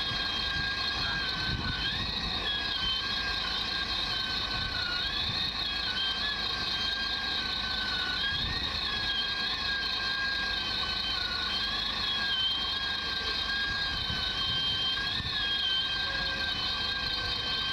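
Machinery on a work boat running steadily, with a high whine that wavers slightly up and down in pitch.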